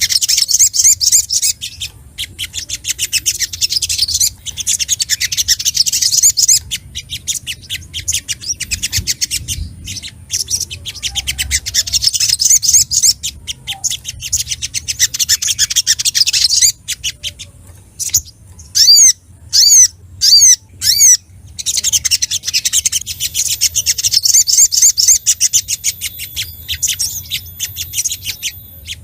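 Sogok ontong (spiderhunter) singing in agitated chatter: fast strings of high chit notes. About two-thirds of the way through they break into a few separate, louder downslurred chirps before the rapid chatter resumes.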